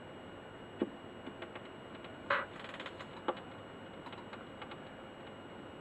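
Standard Hi-Fi record player running in the lead-in groove of a vinyl single: faint hiss with scattered clicks and pops, the loudest about two seconds in, before the music starts.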